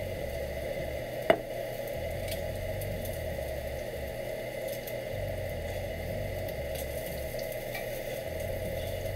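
Trumpet mushroom steaks sizzling steadily in a cast iron skillet, with faint crackles. One sharp click about a second in.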